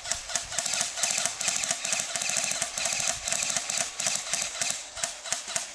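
Airsoft electric guns firing on full auto: a long, rapid, rattling burst of fire that stops near the end.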